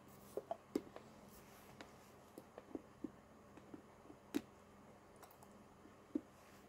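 Faint, irregular clicks and ticks, about a dozen, over a quiet steady hum. The loudest come near the start, in the middle and near the end.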